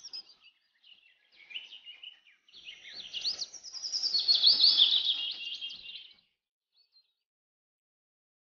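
Birds chirping: a few scattered high calls, then a dense run of quick chirps that swells to its loudest in the middle and stops about two seconds before the end.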